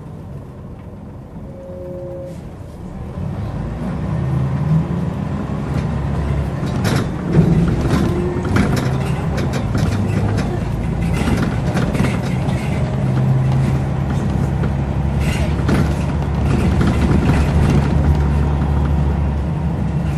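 Scania L94UB bus's diesel engine running under way with its ZF automatic gearbox, heard on board. The engine note rises about three seconds in and then holds steady, with scattered clicks and rattles.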